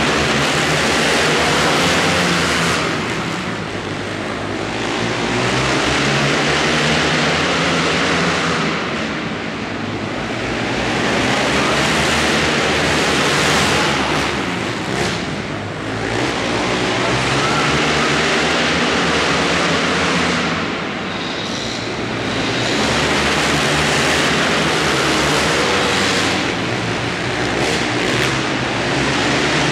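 A pack of racing quads (ATVs) running hard around an indoor dirt short track, their engines swelling and fading roughly every six seconds as the field laps past, echoing in the arena hall.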